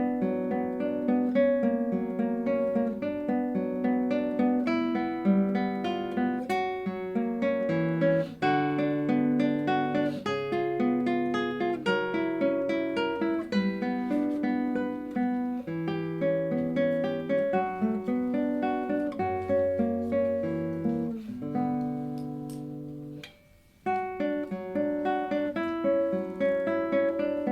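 Solo classical guitar playing a slow, fingerpicked piece of broken chords. About three-quarters of the way through, the notes die away into a moment of near silence, then the playing resumes.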